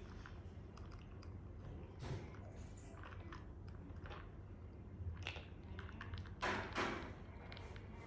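Small clicks, taps and rattles of plastic toys being picked at and nudged by an African grey parrot's beak, with two louder rattling bursts a little after six seconds in.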